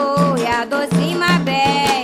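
Candomblé cantiga sung in Yoruba by several voices over a steady percussion accompaniment of hand drums.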